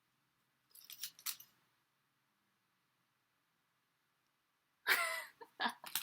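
Paint-tube crimper squeezing a metal paint tube: a short cluster of crinkling clicks about a second in. A louder sound with a wavering pitch starts near the end.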